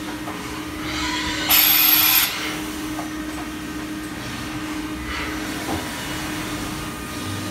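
Yang YVM-1000H CNC vertical machining center running with a steady hum while its spindle head traverses across the work area. A loud hiss builds about a second in, peaks briefly and cuts off sharply just over two seconds in.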